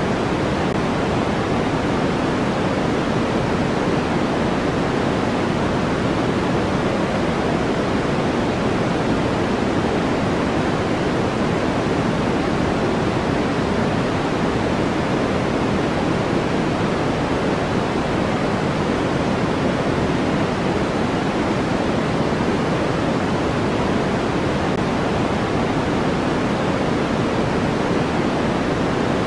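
Steady, unchanging white noise: an even hiss, fullest in the low and middle range and softer in the highs.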